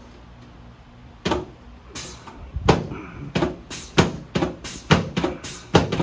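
A chiropractic adjustment on a treatment table: a quick series of sharp knocks, about two a second and slightly speeding up, starting about a second in.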